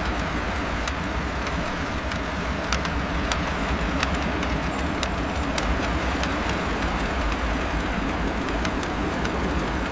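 LEGO train running on its plastic track: a steady rumble from the motor and wheels with irregular sharp clicks, as at the track joints.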